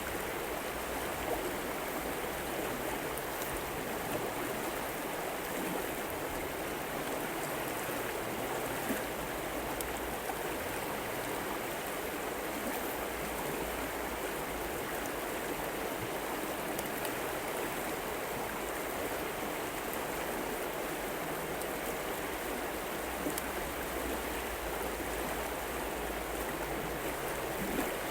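Steady rush of a flowing river, even and unbroken, with a few faint clicks over it.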